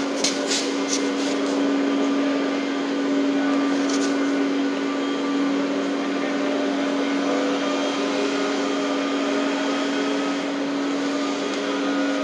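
Steady machine hum with a constant low drone. A few light knocks come in the first second and another at about four seconds, as the steel unit-weight measure full of concrete is handled and set down.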